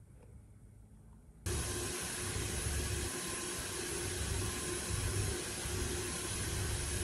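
Powder coating booth running: a steady rush of air with a low hum from the booth's extraction fan and the compressed-air powder gun, starting abruptly about a second and a half in.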